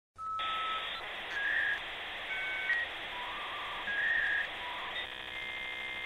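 Electronic intro jingle: short beeping tones hopping between pitches over a steady band of hiss, changing about five seconds in to a buzzy held tone.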